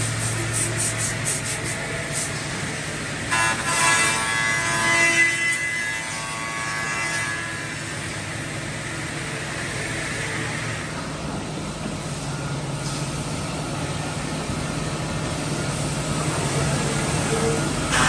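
CNC mortiser and tenoner machine running with a steady low hum, joined by a higher whine from about three to seven seconds in.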